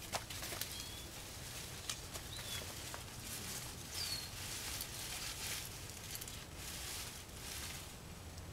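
Outdoor garden ambience: faint rustling and light ticks, with a few short, high bird chirps, one falling chirp about four seconds in.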